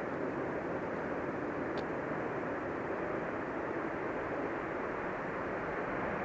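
Steady, even rushing noise with no distinct events and no high end.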